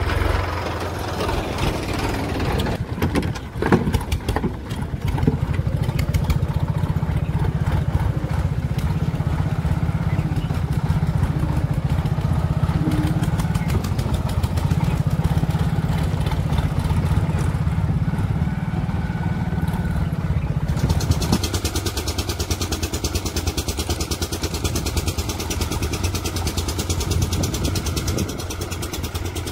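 Tractor diesel engines running steadily as Sonalika tractors drive along a dirt farm track. A few sharp knocks come a few seconds in, and the sound changes abruptly about two-thirds of the way through, with more hiss.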